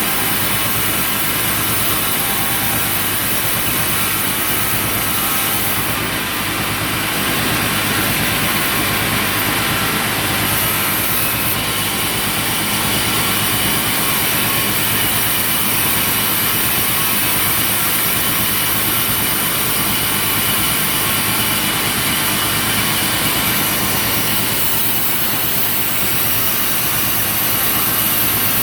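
Sawmill machinery running with a steady, loud engine-like drone.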